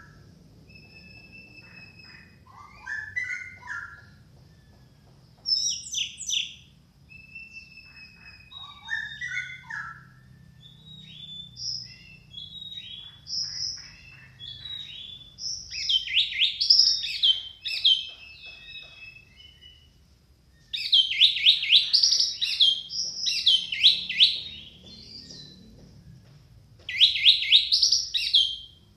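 Orange-headed thrush singing a varied song of short whistled phrases, breaking into loud, rapid chattering runs about halfway through and again near the end.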